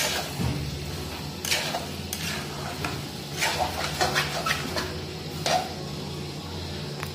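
A spoon scraping and knocking against a black iron kadai as chicken pieces are stirred and bhuna-fried in thick masala. The strokes come in irregular clusters over a steady low hum.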